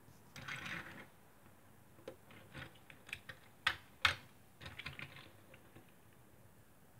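A small die-cast toy car handled on a wooden tabletop. A short scraping rustle comes near the start, then a run of irregular light clicks and taps as it is picked up and turned in the fingers, the loudest two close together around the middle.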